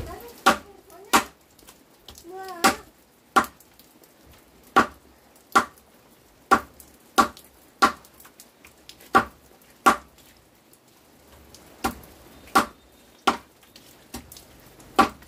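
Chopping with a blade into wood: about fifteen sharp strokes at an uneven pace, roughly one every 0.7 s, with a short pause partway through.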